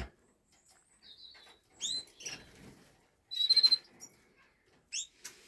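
Caged finches chirping: a handful of short, high calls scattered through, the loudest about two and three and a half seconds in.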